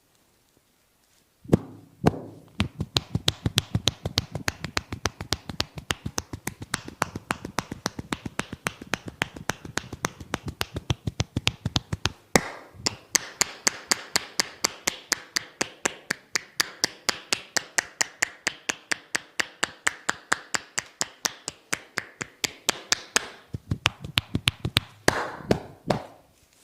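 Hands striking the body in rapid, rhythmic percussive massage strokes, several sharp slaps a second. A little under halfway there is one louder strike, and after it the slaps sound brighter.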